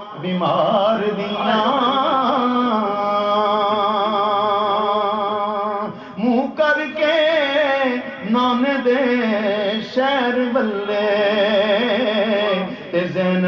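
A man singing an Urdu naat solo, drawing out long held notes with a wide, wavering vibrato and sliding ornaments, with short breaks for breath between phrases.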